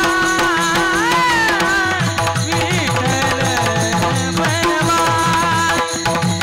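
Devotional kirtan music: a gliding sung melody over a steady held note. Tabla strokes come in about two seconds in and keep a repeating rhythm.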